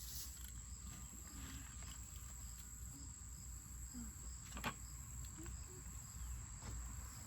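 Insects, likely crickets, trilling steadily at a high pitch, with faint low rumble and small handling sounds. One sharp tap comes about two-thirds of the way through.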